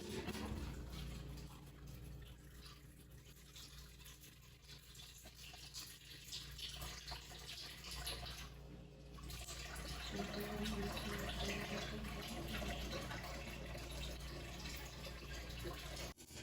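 Water running from a tap into a sink, louder in the second half.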